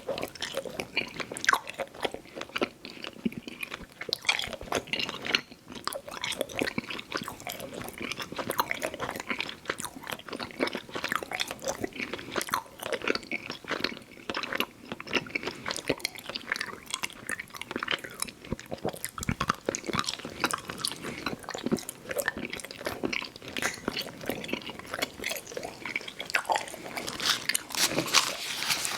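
Close-miked chewing of Fruit Roll-Up candy: a dense, irregular run of sticky, wet mouth clicks and smacks that never lets up.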